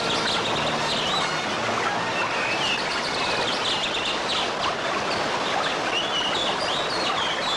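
Rushing mountain stream with small birds chirping repeatedly over the steady sound of the water.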